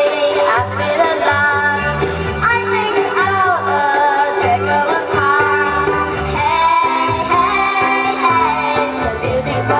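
Song with singing over instrumental accompaniment, a steady repeating bass line underneath the melody.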